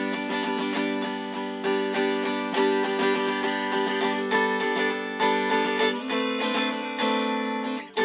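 Yocky "Driftwood" mountain dulcimer strummed in a steady run of strokes. The melody string is fretted while the other strings drone on unchanged beneath it.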